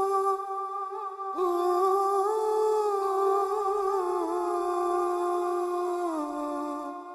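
Music of long, held, voice-like notes, one pitch at a time, stepping lower twice and fading out near the end.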